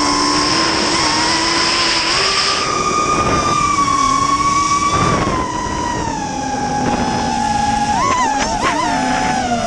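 Drone motors and propellers whining, several tones drifting up and down in pitch together as the throttle changes, with a quick wavering of pitch near the end.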